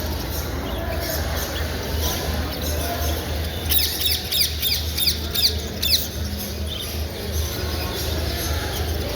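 A cage bird giving a quick run of about a dozen sharp, high chirps, starting about four seconds in and lasting about two seconds, over a steady low hum.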